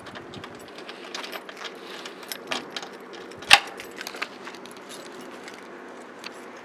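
Small metallic clicks and jingling as the fuel filler cap on a Suzuki PV moped's tank is worked open by gloved hands, with one loud sharp metal clack about three and a half seconds in.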